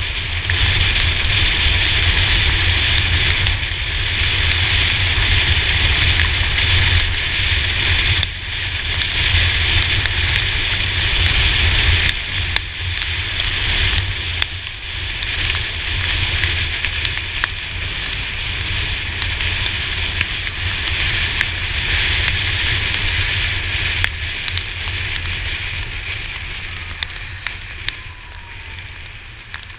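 Riding noise from a Yamaha T-Max 530 scooter at speed in heavy rain: a low wind rumble on the camera, the hiss of tyres throwing spray off the wet road, and raindrops ticking against the camera. The noise dies down over the last few seconds as the scooter slows.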